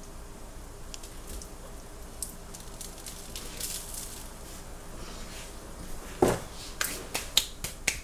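Kitchen handling sounds: salt shaken from a cardboard canister with a faint, scattered hiss, then a knock about six seconds in and several sharp taps and clicks near the end as things are handled and set down.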